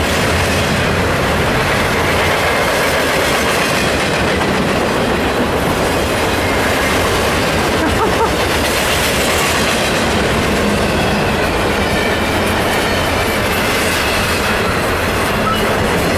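Canadian Pacific freight train's double-stacked container cars rolling past: a steady, loud rumble and clatter of steel wheels on the rails, with faint high wheel squeals now and then.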